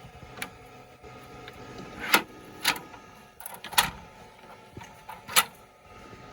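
Glowforge laser cutter running a cutting and engraving job: a steady fan hum with the machine whirring, broken by several sharp clicks at irregular intervals.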